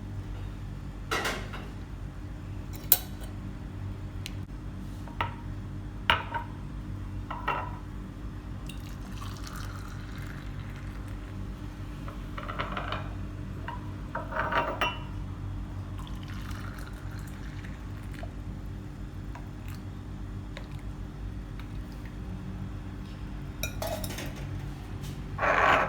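Kitchen cups and utensils clinking and being set down with sharp knocks, with liquid being poured now and then, over a steady low hum.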